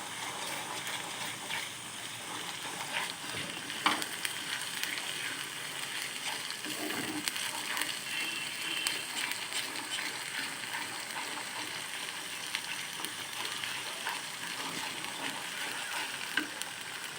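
Onions and ginger-garlic paste sizzling in hot oil in a kadai, stirred with a spoon, with a few sharp clicks of the spoon against the pan.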